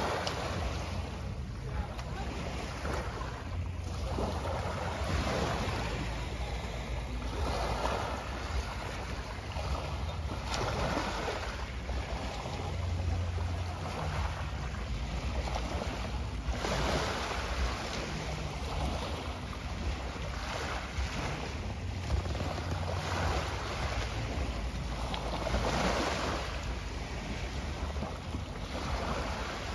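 Small sea waves washing onto the shore in surges every few seconds, over a steady low rumble of wind on the microphone.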